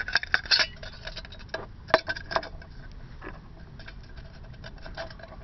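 Empty tin cans being handled and stacked, giving a scatter of light metallic clicks and taps, busiest at the start and again about two seconds in.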